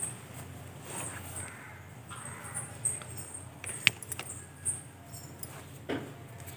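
Small objects on a puja altar being handled: scattered light clicks and knocks, with one sharp click a little past the middle.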